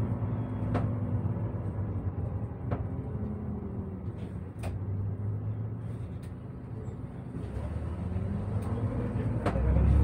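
MAN NÜ 280 city bus driving, heard inside the front of the bus: a steady engine hum with road noise and a few sharp clicks. The engine note rises and grows louder near the end as the bus pulls harder.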